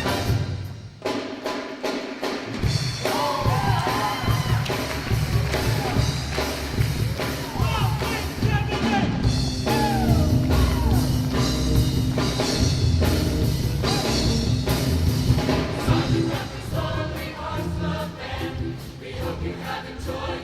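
A school choir singing with instrumental accompaniment. The music dips briefly about a second in, then carries on.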